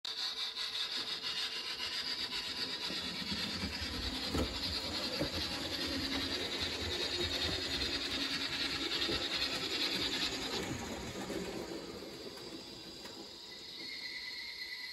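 A steady rasping, scraping noise played as a sound effect by the model drawbridge's Märklin mSD3 sound decoder, with a few dull knocks about four seconds in; the hiss thins out and grows quieter about ten and a half seconds in.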